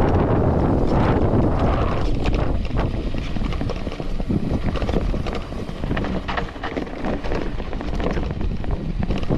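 Wind buffeting a GoPro's microphone as a mountain bike rolls fast down a dry dirt trail, with the tyres crunching over loose stones and the bike rattling. The wind rush eases about two seconds in, leaving more of the clicks and rattles.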